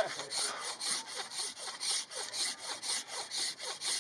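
Rhythmic rasping strokes, about four to five a second.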